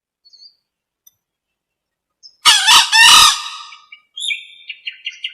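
Green junglefowl hen's call, a lure call for drawing in males: one loud, harsh call lasting about a second, followed by a quick run of short, higher notes.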